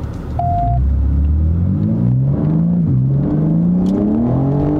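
BMW M4 Competition's twin-turbo straight-six accelerating hard through a newly fitted Remus sport exhaust, heard from inside the cabin. The engine note climbs, drops sharply at a gear change about three seconds in, then climbs again. It has a loud, rough sound.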